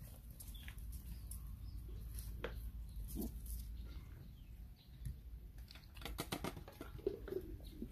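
Puppies eating from a plastic plate and stepping about on concrete: faint, scattered small clicks and smacks, with a quick run of clicks about six seconds in.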